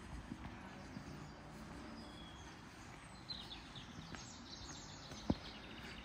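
Faint steady rush of flowing water with birds chirping briefly about halfway through, and a single sharp click near the end.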